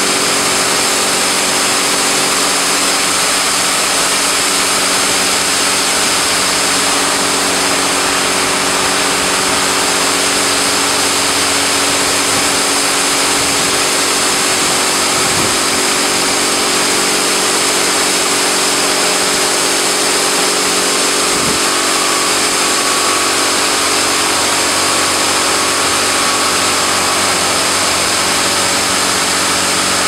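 AA4C AA-360RD touchless car wash machine spraying water at high pressure onto a car. The jets make a loud, steady hiss over a steady pump hum.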